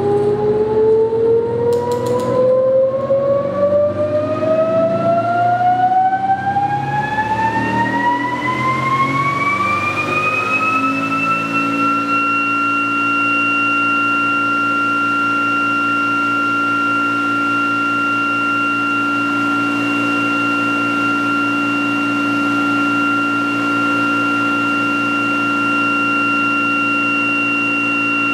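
Prime mover driving the ReGen-X generator, spinning up: an electric whine that rises steadily in pitch for about eleven seconds, then holds at one constant high pitch over a low hum as the rig reaches speed. There is a brief click about two seconds in.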